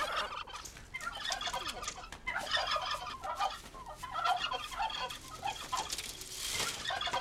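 A flock of poultry calling excitedly, with dense, rapid, overlapping clucking and gobbling calls and a brief rush of noise near the end.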